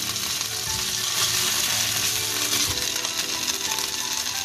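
Diced boiled potatoes and chopped garlic frying in hot olive oil in a nonstick pan, a steady sizzle as they crisp.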